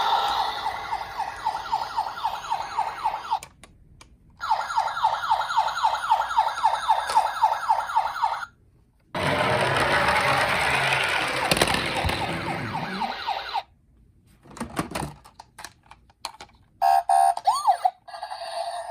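Electronic siren sounds from toy ambulances and police cars, played through their small built-in speakers. A fast repeating yelp-style siren stops briefly, restarts and stops again; a noisier siren sound follows. After a quiet gap with a few clicks come short pitched siren tones near the end.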